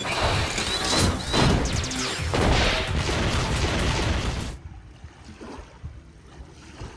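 Animated-film action soundtrack: explosions, whooshes and crashes over music. About four and a half seconds in it cuts off abruptly to faint wind noise on the microphone.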